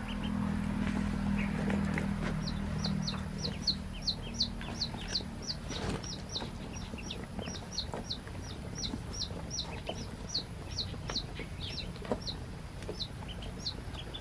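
A brood of newly hatched ducklings peeping: a rapid series of short, high, falling peeps, about two to three a second, starting a couple of seconds in. A low steady hum underlies the first few seconds.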